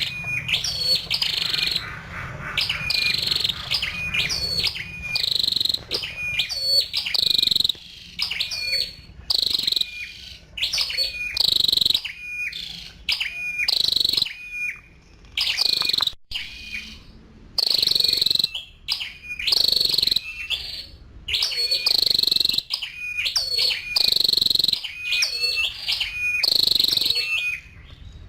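Female flowerpecker calling: sharp, high chirps given in quick repeated runs with short gaps between them.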